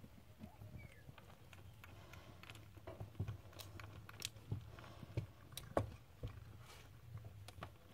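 Faint rustling and scattered soft knocks and clicks as Scottish Fold kittens tumble and wrestle on a fleece blanket, over a low steady hum.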